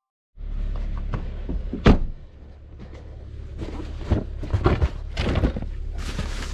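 Bags and clothing shifted around in a car's luggage compartment: rustling with knocks and thumps, the loudest a sharp thump about two seconds in, over a steady low rumble.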